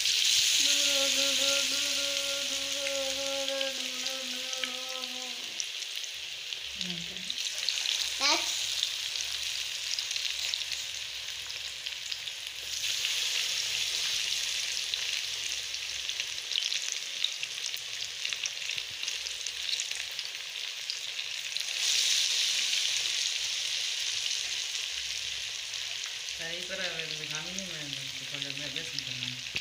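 Batter-coated fish pieces deep-frying in hot oil in a wok: a steady, dense sizzle. It is loudest at the start, as a fresh piece is lowered into the oil, and swells again twice later as more pieces go in.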